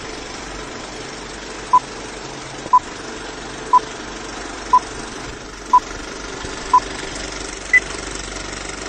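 Electronic countdown beeps: six short, identical beeps one second apart, then a seventh beep at a higher pitch marking the start, over a steady hiss.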